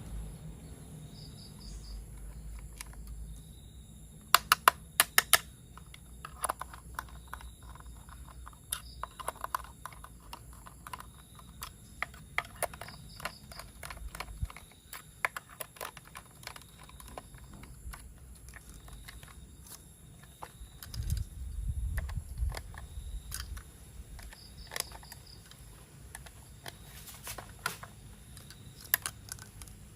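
Hard plastic toy parts clicking and knocking as they are handled and snapped together, with a quick run of about six sharp clicks about four seconds in.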